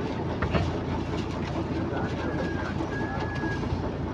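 A boat's engine runs steadily while a net full of small fish splashes alongside.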